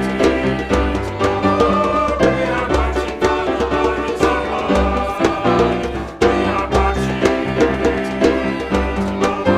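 Upbeat hymn music with instrumental accompaniment over a steady beat.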